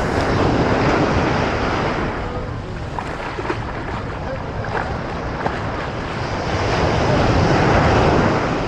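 Ocean surf breaking and washing up the beach, swelling twice: once near the start and again near the end. Wind buffets the microphone throughout.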